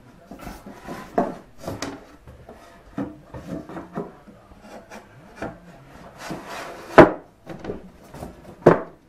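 A thin wooden back panel being handled and pushed into place against a solid walnut cabinet: wood rubbing and scraping on wood, with irregular knocks and two sharper, louder knocks near the end.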